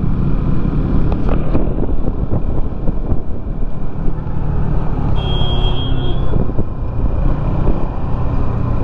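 Sport motorcycle engine running steadily while riding along the road, a dense continuous rumble. A short high-pitched tone sounds about five seconds in.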